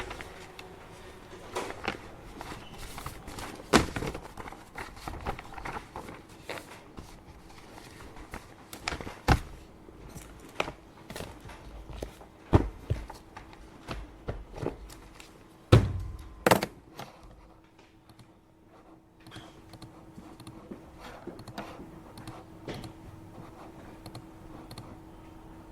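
Desk handling sounds in an office: objects and papers being moved and set down, with scattered knocks and several sharp thunks, then quieter light ticks for the last third. A thin steady hum runs under it from about a third of the way in.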